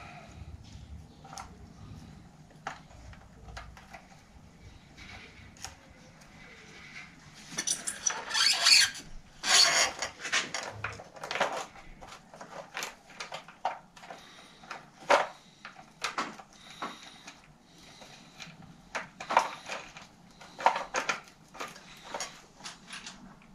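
Small metallic clicks, taps and rattles of hands working at a bicycle's rear hub while the gear shift is reconnected. There is a louder burst of clattering about eight to ten seconds in.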